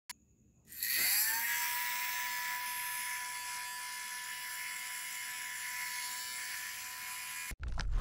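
Mini DC motor of a homemade plastic-bottle vacuum cleaner switching on, spinning up with a quick rising whine, then running with a steady high whine. It cuts off abruptly near the end.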